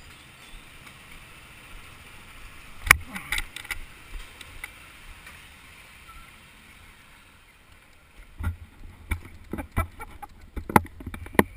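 Handling knocks and bumps on a GoPro in its housing as it is carried, over a steady background hum. One sharp knock comes about three seconds in, and a run of irregular thumps starts from about eight seconds.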